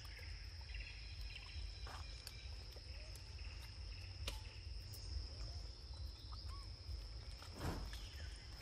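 A steady high-pitched insect drone over a low rumble of wind on the microphone, with a few faint short chirps and a brief rustle near the end.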